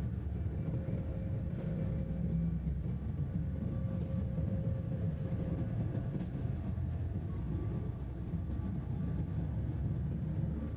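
Airliner on its takeoff roll: a steady low rumble of engines and wheels on the runway, with a faint steady whine above it.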